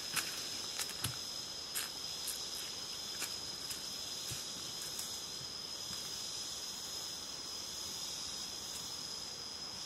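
An insect sings one steady, high-pitched note without a break. Over the first few seconds come light crackles of footsteps on dry leaf litter, which thin out as the walker moves off.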